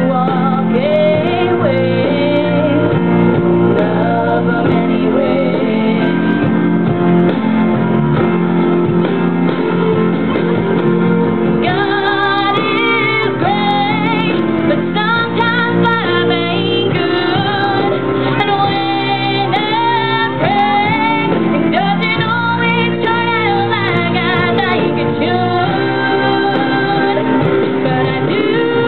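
A woman singing a ballad solo into a microphone over instrumental accompaniment; about twelve seconds in her voice climbs higher and stronger.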